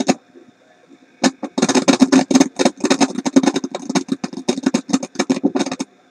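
A tube console stereo's speaker crackling and popping: a click at the start and about a second in, then a fast, irregular run of loud crackles, about eight a second, that stops just before the end.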